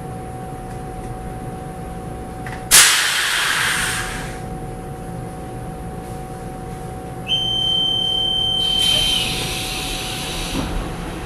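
Taiwan Railways EMU700 electric train standing with a steady equipment hum. About three seconds in, a sudden loud hiss of released compressed air fades away; about seven seconds in, a steady high electronic door-warning beep sounds for about two seconds as the pneumatic sliding doors hiss open.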